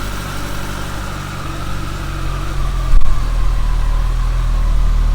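Stock 2018 Kawasaki ZX-14R's inline-four engine idling steadily. About three seconds in there is a short loud knock, and after it the low rumble is louder.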